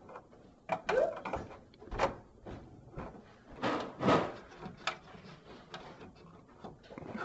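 Irregular clicks, knocks and rattles of hands handling an Aprilaire 550 humidifier's plastic housing and water supply line. The loudest knocks come about one second in and again about four seconds in.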